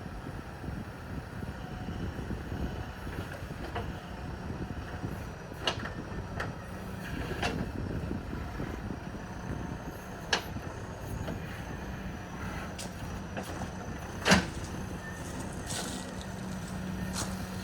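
JCB 3DX backhoe loader's diesel engine running steadily under work, with a few sharp knocks, the loudest about three-quarters of the way through.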